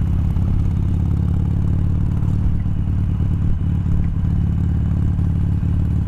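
Harley-Davidson Sportster 1200 Roadster's air-cooled V-twin running steadily under way, heard through a microphone inside the rider's full-face helmet.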